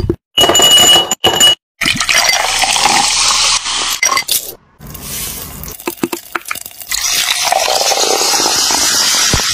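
Ice cubes clinking into a glass jar, then liquid pouring over ice and a fizzy lemon-lime soda hissing as it is poured, in short segments broken by abrupt cuts.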